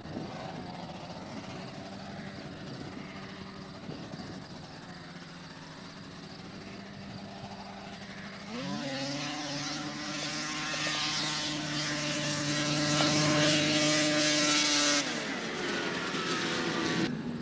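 Race snowmobile's two-stroke engine making a grass drag pass: a faint steady drone at first, then about eight seconds in it jumps sharply to a high, steady, full-throttle note that grows louder for several seconds before the pitch falls away near the end.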